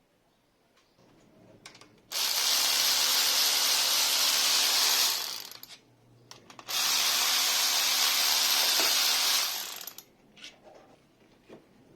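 Handheld power tool running in two bursts of about three seconds each, with a short pause between. Each burst is a steady high whir over a low motor hum, starting and stopping abruptly.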